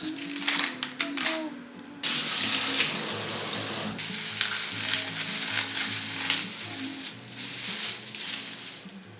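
Kitchen tap running in a steady stream, starting suddenly about two seconds in, after a few light clicks and knocks of utensils.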